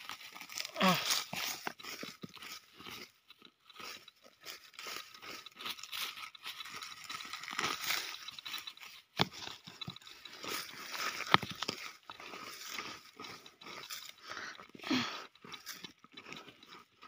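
Dry grass crunching and rustling as a hand rummages through it, in a dense run of irregular crackles.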